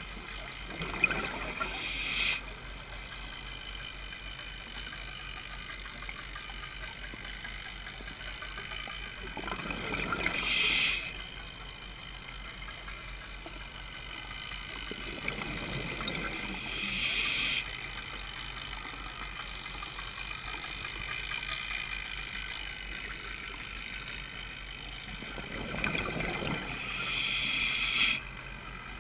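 Scuba diver breathing through a regulator underwater, four breaths about eight seconds apart. Each breath is a rush of bubbles and a hiss that cuts off sharply, over a steady low hum.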